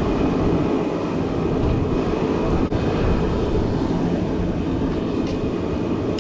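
Forge burner running with a steady roar, just after being lit.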